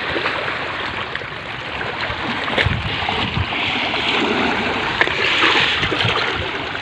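Sea water washing and splashing against the rocks of a stone breakwater, a steady rushing noise with a few brief low knocks around the middle.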